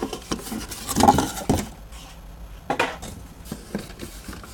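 Carded Hot Wheels cars in plastic blister packs being shuffled and pulled from a storage case: light plastic-and-cardboard clatter, with louder knocks about a second in and again near three seconds in.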